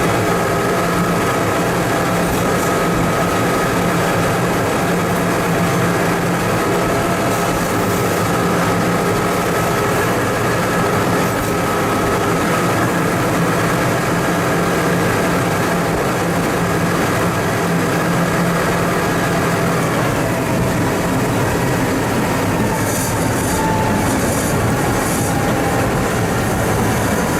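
TMC200 snow-removal motor car (rail maintenance car) running along the track: steady engine noise with wheels on the rails. The engine note drops a little after about twenty seconds.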